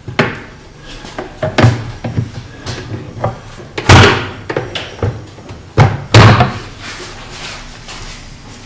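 Cabinet door on concealed clip-on cup hinges being clipped onto its mounting plates and swung against the cabinet frame: a series of sharp clicks and knocks, loudest about four and six seconds in.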